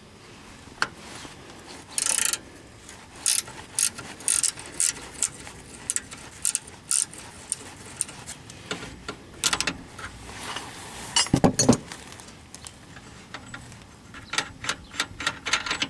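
18 mm ratcheting box-end wrench clicking in short runs as it backs a nut off a steering rack mounting bolt, the bolt held from spinning with locking pliers. A louder metallic clatter comes about eleven seconds in.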